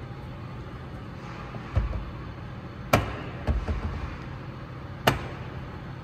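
Lexus TX power-folding third-row seatback folding down under a steady low hum. There is a low thud near two seconds in, a sharp clack about three seconds in followed by a couple of softer thumps, and another sharp clack near five seconds.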